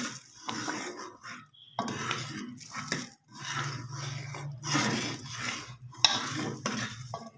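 A spoon stirring thick kheer in a metal cooking pot, scraping against the bottom and sides in quick, irregular strokes.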